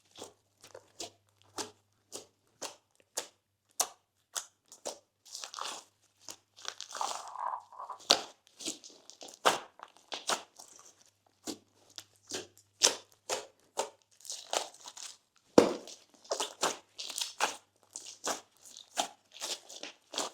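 Slime being squeezed and worked by hand, giving a dense, irregular run of sharp crackles, clicks and small pops with squishy stretches between them. The loudest snap comes a little past the middle.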